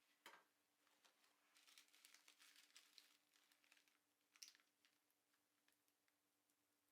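Near silence: room tone with a faint steady hum, broken by a scatter of faint small clicks and rustles, one just after the start and a cluster in the middle.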